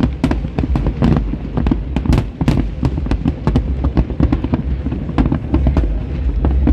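Fireworks display: a rapid, dense barrage of bangs and crackles, several shots a second with no pause.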